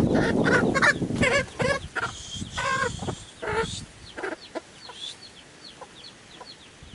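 Mother hen clucking and squawking in several loud calls over the first few seconds, after a rustling scuffle at the start as she is handled. Then many faint, short, high peeps from her chicks.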